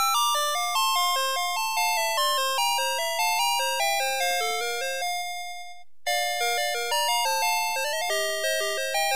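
Navystar Press N Go toy fire truck's electronic sound chip playing a chiming melody of short, bell-like notes. About six seconds in the tune ends on a held note that dies away, and another chiming tune starts at once.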